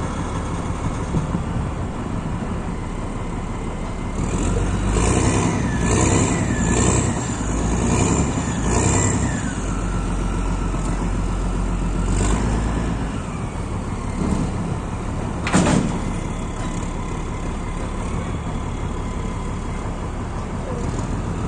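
Heavy diesel engine of a container handler running steadily, with a string of short surges and rising and falling whines between about four and nine seconds in and once more around twelve seconds. A single sharp burst of noise comes a little past halfway.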